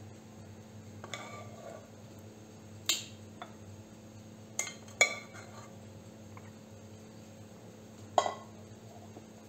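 Metal spoon scraping and clinking against a glass baking dish while peach slices in syrup are spread over the batter. There is a light scrape about a second in, then four separate sharp clinks, two of them close together about five seconds in.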